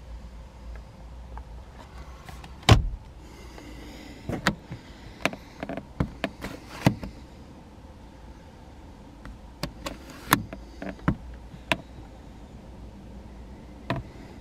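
Car interior trim being worked by hand: a loud knock about three seconds in as the glovebox lid is shut, then a short scrape and a string of plastic clicks and snaps as the sun visor is lowered, its vanity mirror cover opened and shut, and the visor folded back up. A low steady hum lies underneath.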